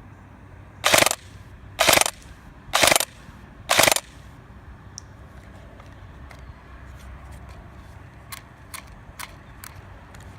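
Elite Force H&K G36C electric blowback airsoft rifle firing four short bursts about a second apart: the metal-geared gearbox cycling and the blowback bolt clacking with each burst. A few faint ticks come later.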